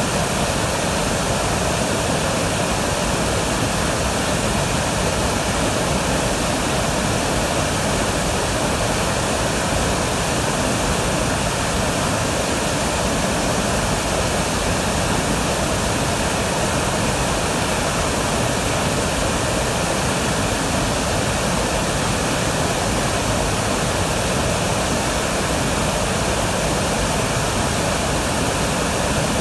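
Waterfall in full flood, muddy brown water pouring over a wide rock ledge: a loud, steady rush without a break.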